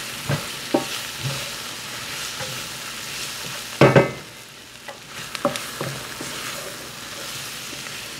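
Diced onion, carrot and potato sizzling in butter in a cast-iron skillet, with a wooden spoon stirring and scraping through them. A few short knocks are heard, the loudest about four seconds in.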